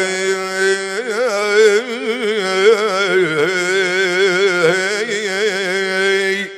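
Arabic mawwal music: a winding melody with wide, wavering pitch ornaments over a steady held drone, pausing briefly at the very end.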